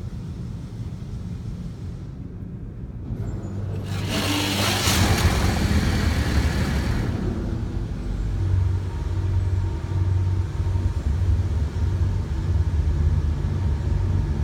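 Automatic car wash heard from inside the car: a steady low rumble, with water spray hissing hard against the car from about four seconds in for a few seconds, then a pulsing low rumble as water sheets over the windshield.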